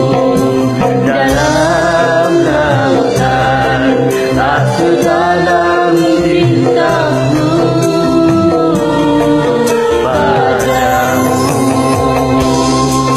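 Singing with vibrato over a karaoke backing track, as in a Smule duet recording.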